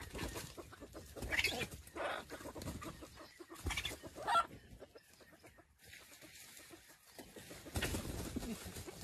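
Red junglefowl clucking: a few short calls come in bunches, with a quieter pause past the middle.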